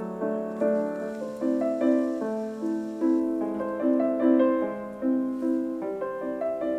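Soft piano music, gently repeated notes and chords at an unhurried pace.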